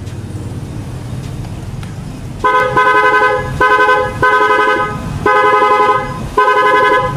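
A newly installed aftermarket horn on a Yamaha Mio i 125 scooter, wired through a relay, sounding in five loud blasts that start about two and a half seconds in. The first blast is the longest. A low steady hum comes before the blasts.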